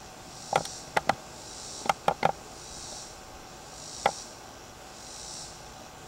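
Cicada song: a high buzz that swells and fades about once a second. It is broken by sharp wooden knocks from the tripod and camera being handled, several in the first half and one more about four seconds in.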